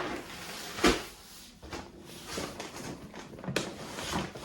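Grocery packages being handled and set down: a knock about a second in, then rustling and light knocks, with another sharp click about three and a half seconds in.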